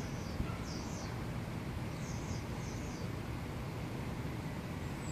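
A small bird chirps four times in the first three seconds, short high chirps over a steady low rumble.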